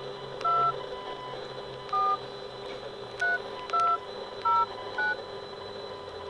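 Flip phone keypad tones as a number is dialled: six short dual-tone beeps, one per key press, at uneven intervals that come quicker toward the end.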